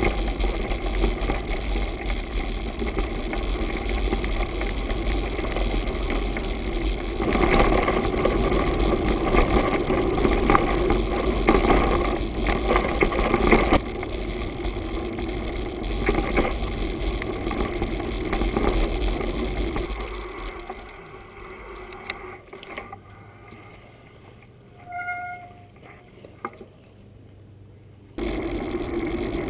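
Mountain bike ridden over a dirt and gravel path, heard through a bike-mounted GoPro: a steady rumble of tyres and frame rattle. It drops to a quieter level about two-thirds in as the bike slows, with one brief high squeal near the end, and picks up again just before the end.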